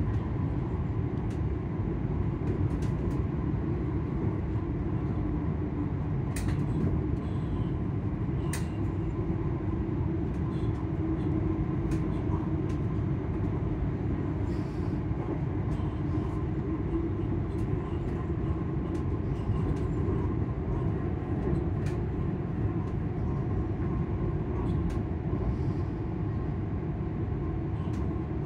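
Class 385 electric train's traction motors whining steadily at an even pitch, heard inside the passenger saloon over a low rumble of the wheels on the rails. A few light clicks come through now and then.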